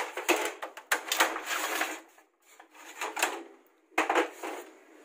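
Paper cassettes of a Canon imageRUNNER copier being pulled out of their slots: plastic scraping and sliding, with sharp knocks at the start and again about four seconds in.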